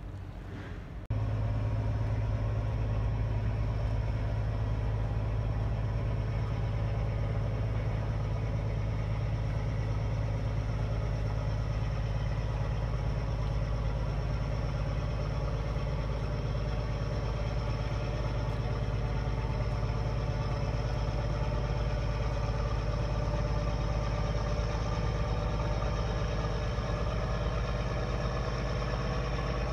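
Steady drone of an engine running at constant speed, with a strong low hum and a set of higher overtones, starting suddenly about a second in and holding an even pitch throughout.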